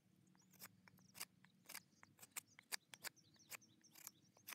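Faint, short scraping strokes of a knife blade shaving a cedar stick, about two a second.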